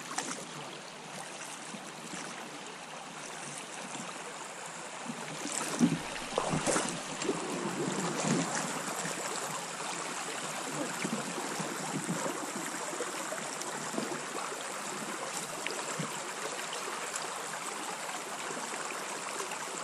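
River water rushing and rippling over shallows around an inflatable PVC boat as it moves through. A few short knocks come about six seconds in, after which the rush is a little louder.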